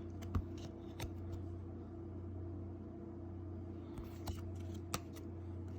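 Baseball cards being handled and flipped through by hand: a few faint clicks and slides of card stock over a steady low hum.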